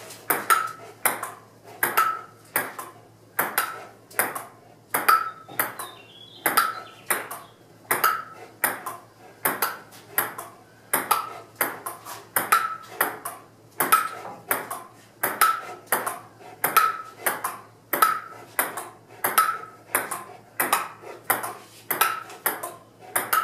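Table-tennis rally: the ball clicking sharply and evenly on the paddles and the tabletop, roughly two clicks a second without a break.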